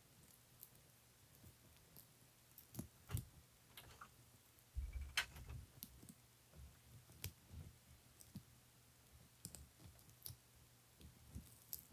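Baby Sulcata tortoises biting and tearing at leafy greens: faint, scattered small clicks and crunches, with a low thump about five seconds in.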